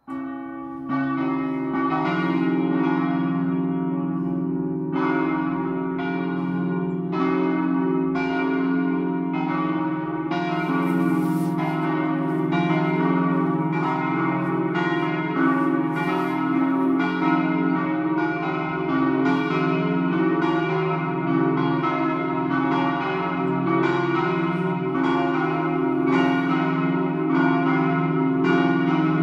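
A festive peal ('doppio') of several swinging church bells in a bell tower, their strikes at different pitches overlapping in an irregular, continuous sequence. The ringing starts suddenly and grows fuller about a second in.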